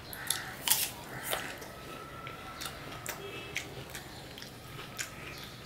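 A person biting into and chewing raw apple slices: a string of short, irregular crisp crunches, the loudest about a second in.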